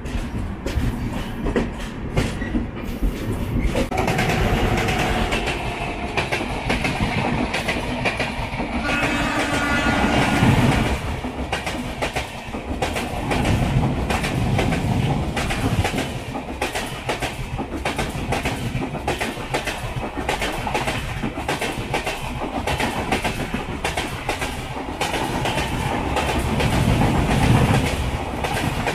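Passenger train running at speed, heard from on board: a steady rumble with the repeated clickety-clack of the wheels over the rail joints.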